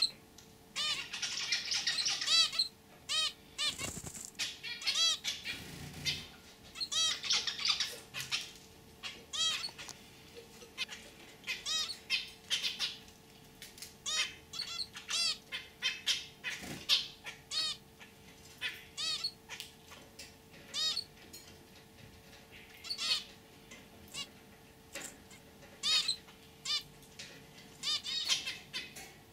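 Zebra finches calling: a steady run of short, sharp calls repeated every second or so, with two stretches of rapid, busier chatter about a second in and about seven seconds in.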